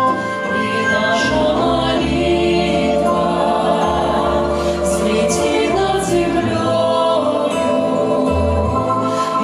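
A mixed group of women's and men's voices singing a Christian hymn in harmony into microphones, with held notes over low bass notes that shift every second or two.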